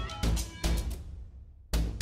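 Background music with a heavy bass beat; it thins out for about half a second and the beat comes back near the end.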